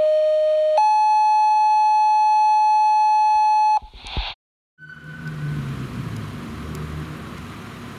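Fire dispatch two-tone pager alert: a steady tone for about a second, then a higher steady tone held for about three seconds. It is followed by a short burst of noise, a brief silence, and traffic running on a town street.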